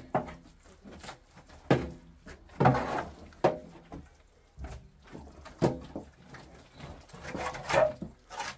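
A series of about ten irregular knocks and bangs, each ringing briefly, the loudest about three seconds in.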